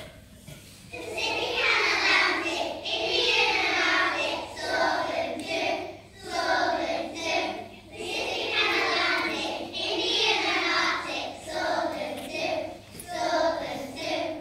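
A group of young children singing together in unison, starting about a second in, in phrases with short pauses for breath.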